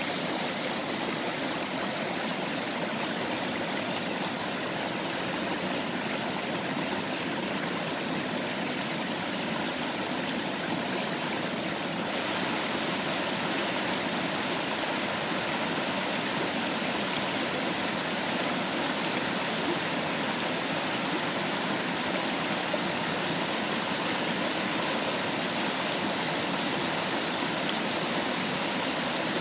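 Stream water rushing over a small waterfall in an even, unbroken flow, with no other sounds; the hiss gets a little brighter and louder about twelve seconds in.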